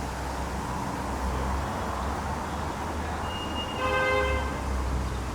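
Steady low rumble of a running road vehicle, with a short horn toot about four seconds in.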